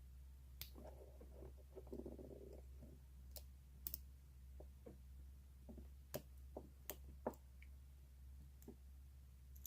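Irregular small metallic clicks of a lock pick working the wafers of an old Yale wafer padlock, with faint rustling of the pick and lock being handled.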